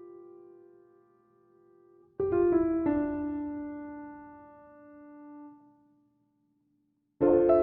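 Slow, soft piano music. A fading note gives way to near silence. A few notes are struck a little over two seconds in and left to ring out. After a moment of silence, a new chord sounds near the end.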